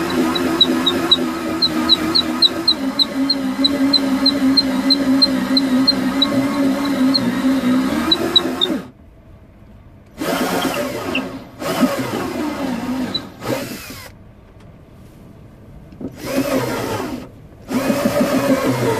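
Cordless drill-driver boring into the wooden rim of an oud, likely for the pickup's output jack. It runs steadily with a light regular ticking, about three ticks a second, for about nine seconds, stops, then is triggered in several short bursts with pauses between them.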